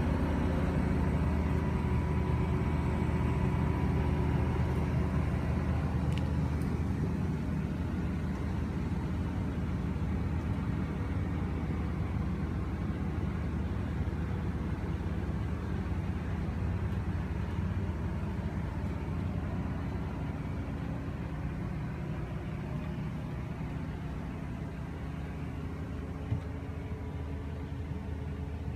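Steady low machine hum made of several held low tones, easing off slightly over the second half, with one brief tick near the end.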